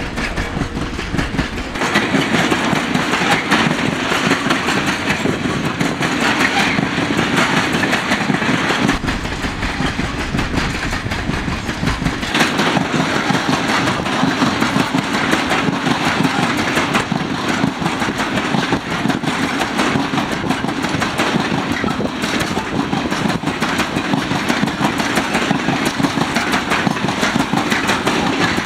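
Freight train of loaded open coal wagons rolling past: a steady rumble with clatter from the steel wheels on the rails.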